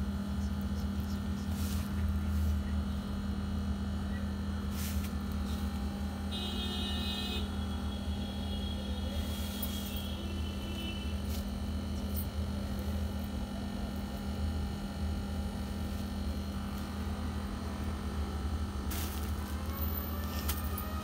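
Steady low hum throughout, with a few short rustles of fabric being handled. Near the end a rising whine sets in.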